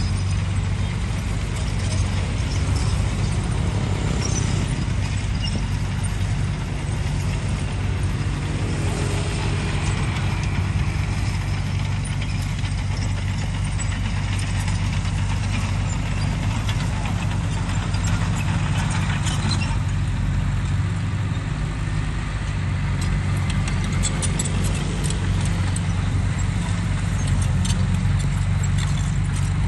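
Excavator's diesel engine running steadily, with light clicks scattered near the end.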